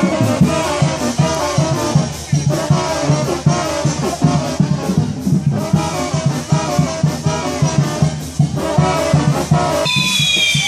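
Brass band playing lively music with trumpets, trombones and a steady bass beat. About ten seconds in, whistling fireworks from the castillo start up, several high whistles sliding slowly down in pitch over the band.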